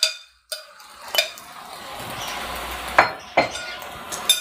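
A metal spoon clinks and scrapes against a glass bowl and a pan as boiled macaroni is tipped into it. From about two seconds in there is a steady sizzle from the pan, with a few more sharp clinks of the spoon against the pan.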